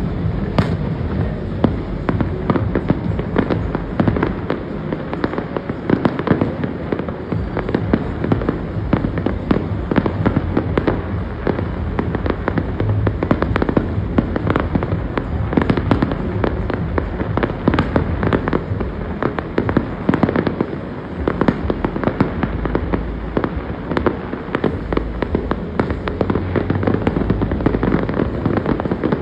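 Fireworks display: aerial shells bursting one after another in rapid succession, a dense, unbroken run of booms and bangs.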